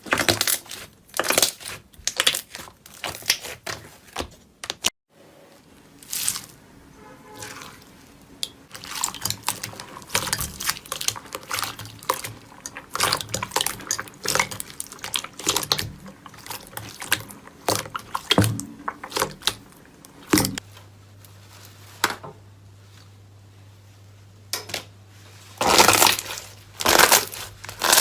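Slime being squeezed, poked and stretched by hand: wet, sticky clicks and squelching pops in quick irregular clusters, over several short clips.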